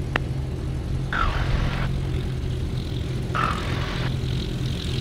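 Cub Crafters X-Cub's piston engine and propeller running steadily at low taxi power. A sharp click comes just after the start, and two short bursts of hiss come about a second in and past three seconds in.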